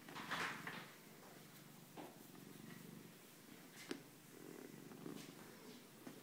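Domestic cat purring steadily in a low, pulsing rumble while being stroked, with a few brief rustles on top, the loudest about half a second in.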